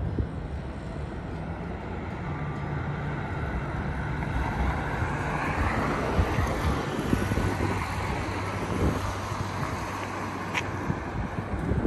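Wind buffeting the microphone over a steady rumble of road traffic, swelling for a few seconds around the middle as a car passes. A single sharp click near the end.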